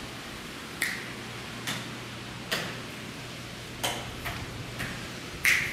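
Footsteps clicking on a hard tile floor, roughly one step a second and the last one the loudest, over a steady faint hiss and low hum.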